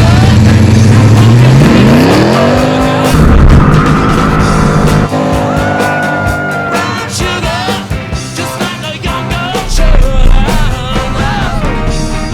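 Supercharged 440 V8 of a 1969 Dodge Charger running at a steady low note, then revving up in a rising sweep about two seconds in. A long high steady squeal follows, and rock music takes over toward the end.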